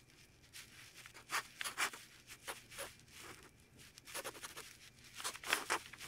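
Felt-tip Crayola washable marker writing on paper: a series of short, scratchy strokes as a Chinese character is drawn stroke by stroke, with small pauses between them.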